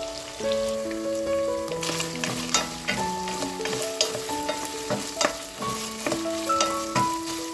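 Food sizzling in a pan, with sharp clicks of a utensil against the pan as it is stirred, starting about two seconds in. Background music with a slow melody of held notes plays throughout.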